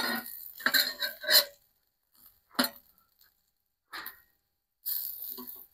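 Metal spatula scraping and tapping on a cast iron grill surface as hash browns are slid into place: a few short scrapes and clinks, then a longer scrape near the end.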